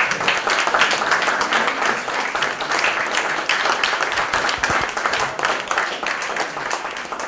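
Small audience applauding, a dense patter of clapping that eases off toward the end.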